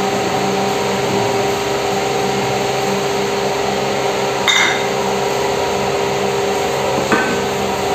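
A steady machine hum, holding several fixed pitches, with a brief knock about four and a half seconds in and another, fainter, about seven seconds in.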